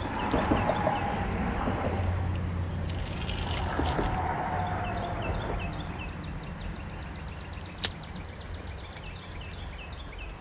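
A songbird singing a run of short, falling chirps, a few a second, from about three seconds in, over a low rumble that fades after the first half. A single sharp click near eight seconds.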